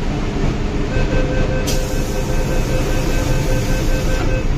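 MTR Island Line M-Train door-closing warning: rapid repeated beeps begin about a second in and run for about three and a half seconds as the doors shut, over the steady hum of the train standing at the platform.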